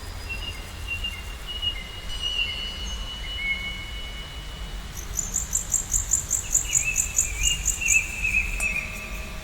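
Nature ambience of songbirds singing long, thin whistled notes, with a rapid high chirping trill of about six pulses a second through the second half, over a steady low rumble. Near the end a soft steady ringing tone comes in.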